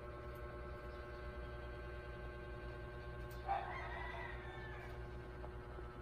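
A rooster crowing once, about three and a half seconds in: a single call of about a second and a half over a steady low background hum.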